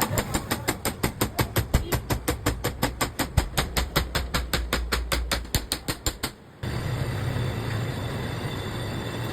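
Rapid, even knocking, about six sharp strokes a second, which stops about six seconds in. After a short break comes a steady low hum with noise.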